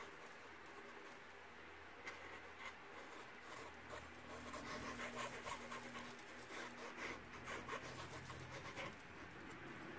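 Plastic squeeze bottle of liquid glue being squeezed in short airy puffs, its nozzle rubbing along the edge of a cardstock box.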